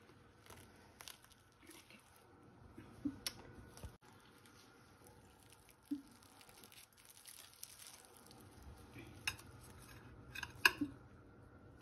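A metal utensil cutting into a baked puff-pastry pie crust and lifting out a portion, with faint scrapes and a few sharp clinks of metal against the baking dish, the loudest pair near the end.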